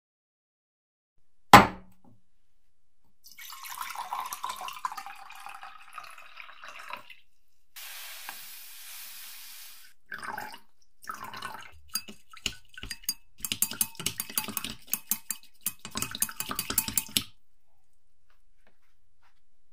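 A single sharp knock, then liquid splashing and pouring into a glass jar. For several seconds after that, a solution is stirred in the jar, the stirrer clicking rapidly against the glass.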